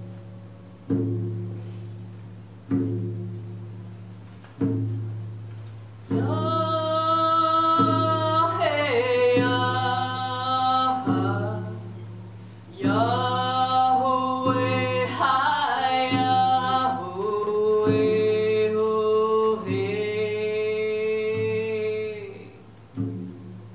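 Live ensemble music: a low plucked string note sounds about every two seconds, then about six seconds in, voices come in singing long held notes over it, some of them bending in pitch.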